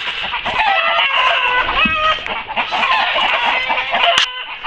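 Chickens squawking and clucking, many short calls overlapping, with a brief sharp rustle about four seconds in.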